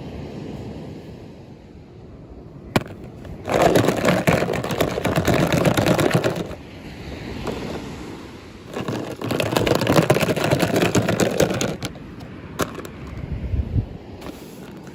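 Toy packaging being handled and opened: two stretches of rapid rustling and rattling about three seconds long, with a sharp click before each.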